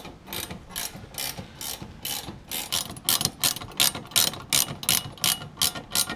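Hand ratchet clicking in short strokes, about three clicks a second, as a bolt is tightened; the clicks get louder about halfway through.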